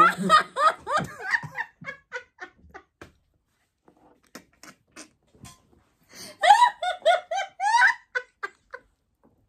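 Hearty laughter in fits of short, rapid pitched bursts: a long run for the first three seconds, fainter breathy bursts after, then a second loud, high-pitched run of laughing from about six seconds in.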